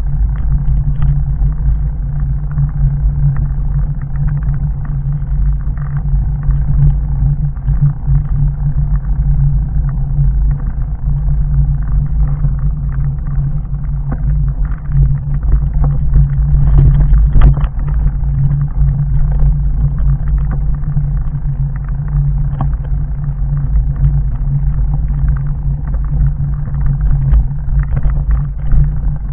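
Fat bike on 4-inch Schwalbe Jumbo Jim tyres rolling over a loose gravel and rock track: a steady heavy rumble with constant clattering of stones and bike parts, heard through a camera mounted on the bike. The jolts get louder for a moment about halfway through, on a rockier stretch.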